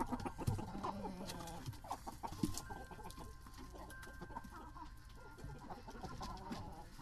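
Chickens clucking close by, with scattered short clicks and taps. The sound is busiest and loudest in the first couple of seconds, then thins out and gets quieter.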